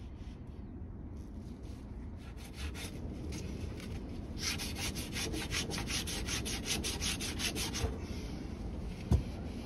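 Scrunched tin foil wet with Coca-Cola scrubbed rapidly back and forth on a rusty chrome BMX wheel rim, rubbing the rust off: an even train of rasping strokes, fainter at first and strongest in the middle. A single knock near the end.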